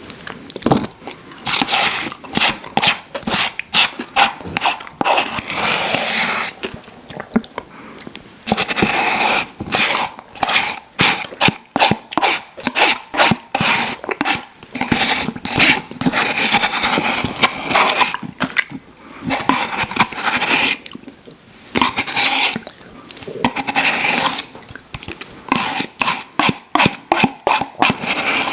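Close-miked mouth sounds of eating ice cream: wet smacking and chewing in rapid, irregular clicks, with short denser stretches.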